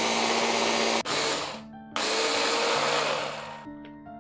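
AGARO Grand hand blender with its chopper attachment running in pulses to mince cabbage: three runs of motor whir and blade noise, a short one in the middle and a longer last one that stops a little before the end.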